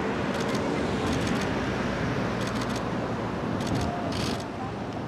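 Several short bursts of rapid camera shutter clicks, over a steady low rumble of traffic and wind.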